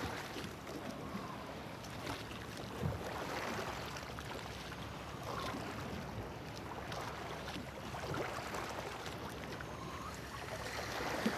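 Sea water sloshing and lapping around the stern steps of a boat, a steady wash with small irregular splashes.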